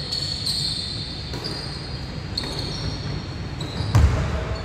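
Basketball being played on a hardwood gym court: ball bouncing, with a loud thud about four seconds in, and high sneaker squeaks on the wooden floor.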